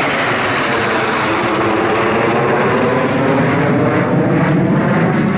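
Steady jet roar of a formation of four Kawasaki T-4 twin-turbofan jets passing overhead, the pitch slowly falling as they go by.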